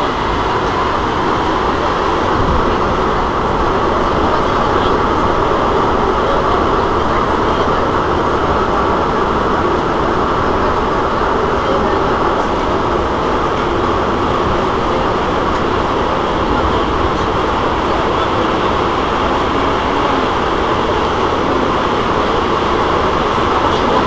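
Alstom MPM76 rubber-tyred metro train running at a steady speed between stations, heard from on board: an even, unbroken rolling and motor noise.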